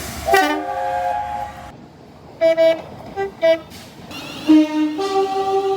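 Train horns sounding, several tones at once: one long blast, a quick run of four short toots, then another long blast.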